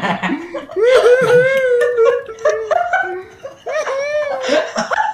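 People laughing hard, with a high, drawn-out laugh starting about a second in and more laughter near the end.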